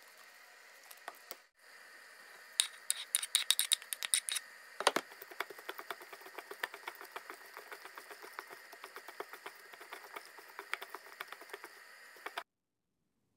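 A hand in a disposable plastic glove tossing and squeezing sliced onion with chopped parsley and sumac in a bowl: rapid crackling and rustling of the glove and the onion slices. It is loudest in the first few seconds, then goes on more softly and cuts off near the end.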